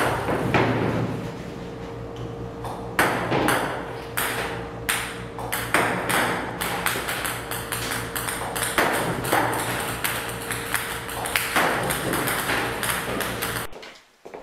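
Table tennis balls clicking and bouncing on a table tennis table, fed by a ball-launching robot, in irregular hits about one to two a second. A steady hum runs underneath and stops near the end.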